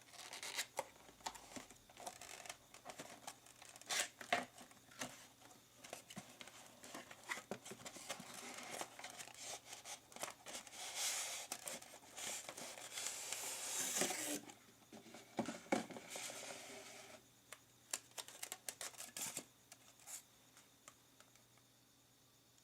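Toy packaging being handled and opened: irregular crinkling, rustling and tearing of paper and plastic with scattered clicks. A longer stretch of continuous tearing or crinkling comes about halfway through, and the handling dies away a couple of seconds before the end.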